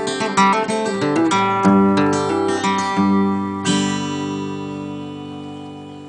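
Acoustic guitar playing a quick run of picked notes, then a final chord struck a little past halfway that rings out and slowly fades.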